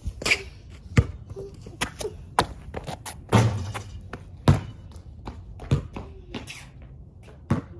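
Basketball bouncing on a concrete driveway, about eight sharp single thuds spaced half a second to a second and a half apart, with a longer scuffing impact about three seconds in.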